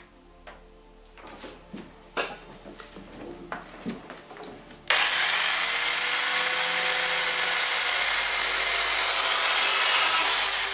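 Corded electric chainsaw cutting through a wooden batten: a loud, steady high whine that starts suddenly about five seconds in and cuts off sharply at the end. Before it, a few light knocks of wood being handled.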